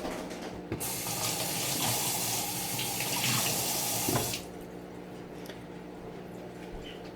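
Kitchen tap running into the sink for about three and a half seconds, then turned off.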